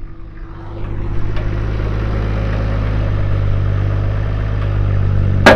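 Nissan Patrol GQ engine running, growing louder over about the first second and then holding steady, with one loud, sharp knock near the end.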